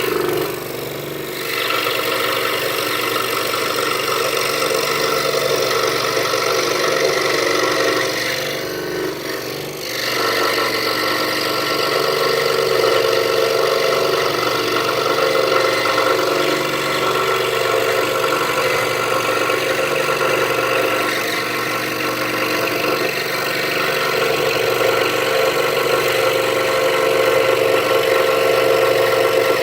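Scroll saw running steadily, its blade cutting through half-inch pine. The sound eases briefly twice, about a second in and around nine seconds in.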